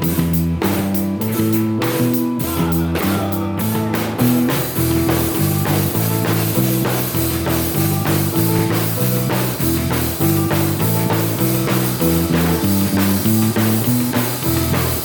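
Band playing rock-style music: guitar, a bass line and a drum kit keeping a steady beat, the drums growing fuller about four seconds in.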